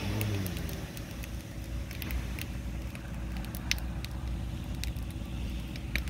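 A road vehicle passes near the start, its pitch falling as it goes by, over a steady low rumble. Scattered sharp clicks occur throughout.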